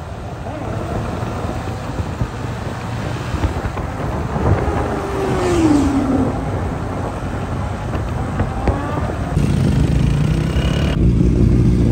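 Motorcycle engine and road noise while riding, with a falling engine note about five seconds in. The sound changes abruptly twice near the end.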